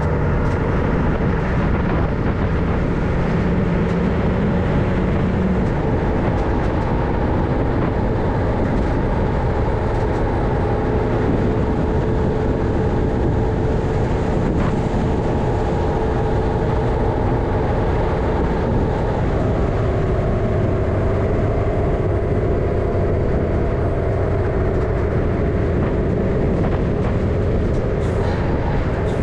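MAN LE280B 4x4 truck's diesel engine running steadily as the truck drives, its pitch shifting a few times, with rumble from the drivetrain and road.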